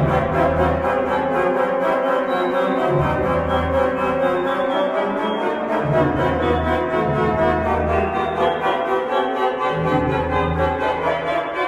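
Pipe organ playing full sustained chords over a deep pedal bass line, which sounds in phrases of a few seconds with short gaps between them.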